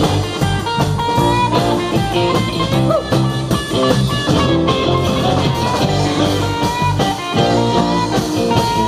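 Live band playing a song on amplified electric and acoustic guitars.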